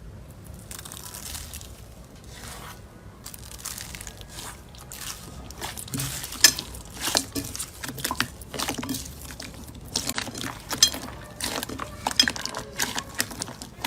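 Slime being pressed and squeezed by hand: soft and sticky at first, then from about six seconds in a run of sharp, crackling clicks and pops.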